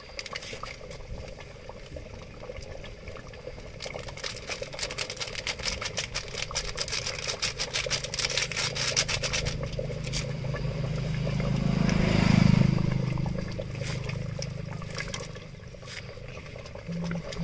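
A motor vehicle passing by, its low engine hum swelling to its loudest about twelve seconds in and then fading away. Earlier, from about four to ten seconds, there is a run of quick scraping clicks.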